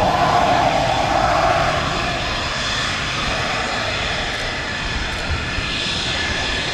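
Fighter jet engines running: a loud, steady roar with a high whine through it. The roar is strongest for the first couple of seconds, then eases slightly.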